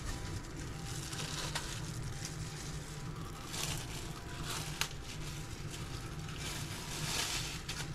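Crinkling and rustling of plastic being handled, with a few light clicks, over a steady low hum.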